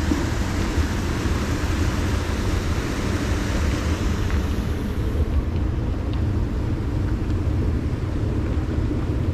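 Wind buffeting the microphone: a loud, fluttering low rumble, with a higher hiss that dies away about five seconds in.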